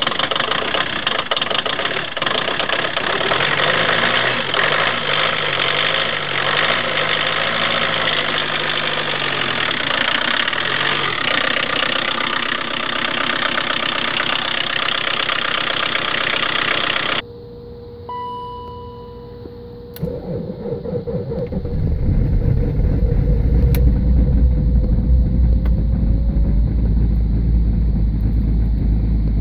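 Cold car engines in deep frost: first a jump-started engine running loudly with a wavering note, then, after a short beep, a BMW diesel cranks and catches about two-thirds of the way in and settles into a deep, loud cold idle near 1000 rpm at about −18 °C.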